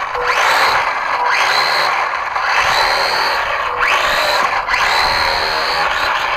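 Two small electric motors with plastic propellers whining as the model air-propeller boat is throttled up and down. The pitch climbs quickly to a high steady tone about five times, easing off in between.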